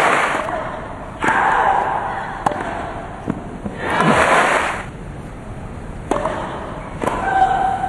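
Tennis crowd clapping and cheering in short swells between points, and the sharp pops of a tennis ball struck by rackets, two hits about a second apart near the end.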